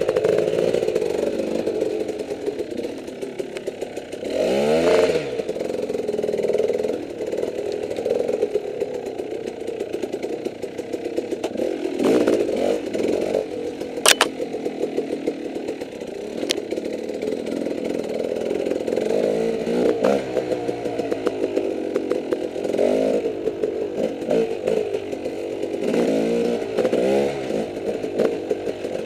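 Dirt bike engine heard from the rider's helmet, running at low speed with the throttle blipped up and down again and again. There is a sharp knock about fourteen seconds in.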